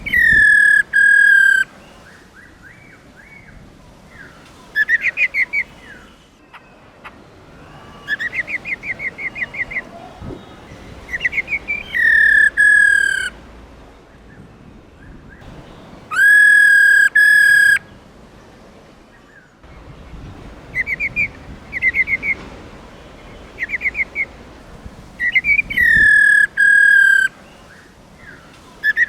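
Female black-throated laughingthrush calling: its 'ro ro' call, the call keepers use to rouse males. Short runs of quick rising chirps alternate with loud, clear whistles that slide down and then hold steady for about a second, repeated over and over.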